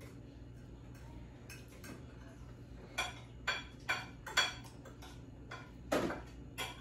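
Spoons and forks clicking and scraping against plates and bowls as people eat: a string of sharp clinks, most of them bunched a few seconds in, with a couple more near the end, over a faint steady hum.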